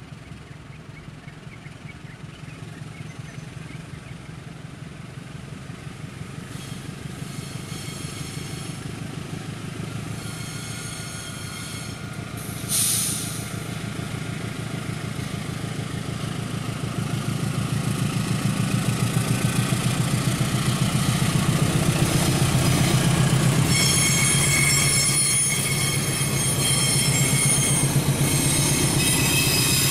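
Passenger train approaching and passing: the diesel locomotive's engine hum grows louder as it nears, then the carriages roll by with loud, high-pitched squealing of steel wheels on the rails. The squeal comes and goes and is strongest near the end, and there is a brief sharp burst of noise about 13 seconds in.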